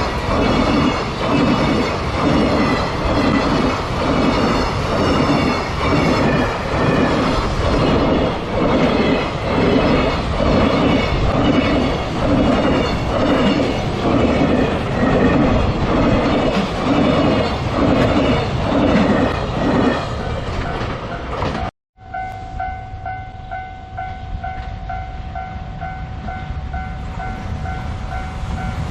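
Freight train wagons rolling over a level crossing, the wheels clacking over the rail joints in a steady rhythm about once a second. About three quarters of the way through the sound cuts off abruptly, and a level crossing alarm's electronic tone then rings over a quieter rumble.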